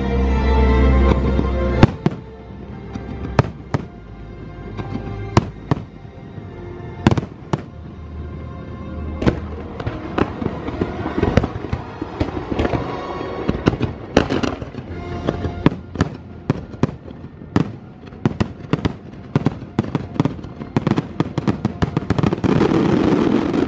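Aerial fireworks bursting with orchestral show music: a sustained musical chord, then from about two seconds in a long run of sharp bangs and crackles that grows denser toward the end, with the music continuing underneath.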